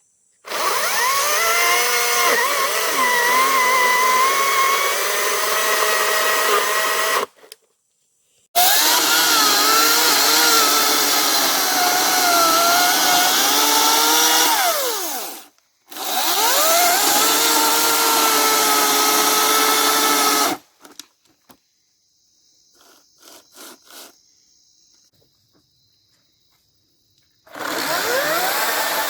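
Hart 14-inch battery chainsaw running in four long bursts while cutting through a thick log. The electric motor winds up at each start, and its pitch sags and wavers as the chain bogs down in the wood. There are faint clicks in the pause before the last burst.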